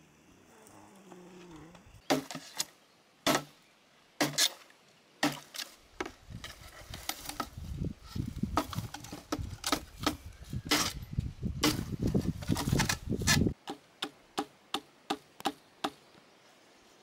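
Machete chopping and knocking on bamboo and wood: a few separate sharp knocks, then a busier stretch of rustling and knocking among dry leaves and cut pieces, and near the end a quick run of light, evenly spaced chops, about three a second.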